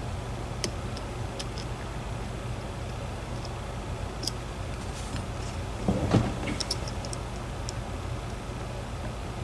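Faint metallic ticks of a lock pick and tension tool working the pins of a DOM IX 10 dimple lock, with a louder short clatter of handling about six seconds in, over a steady low hum.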